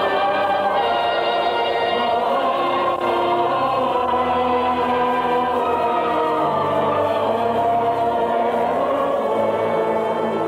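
Choir singing long held notes with orchestra, operetta style, through an early-1950s radio recording with its highs cut off.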